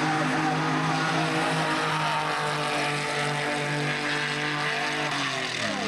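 Car engines held at high revs during a drag race, a steady droning note whose pitch falls near the end.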